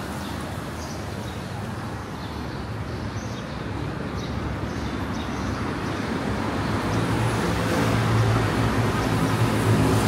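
Road traffic, a steady noise of passing vehicles, growing louder about six seconds in as a low engine hum builds and holds.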